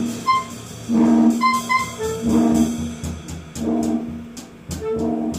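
Live improvised music: a wind instrument sounds the same low note over and over, about once a second, over short high beeps and, from about halfway, light clicking taps.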